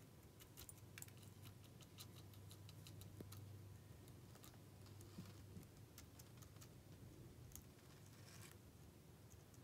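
Near silence: faint light clicks and ticks, scattered a few a second, as fingers handle tiny bits of food on a countertop, over a low steady hum.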